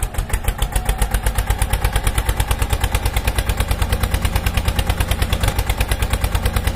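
Tractor engine running at a steady idle with a fast, even put-put of about eight beats a second.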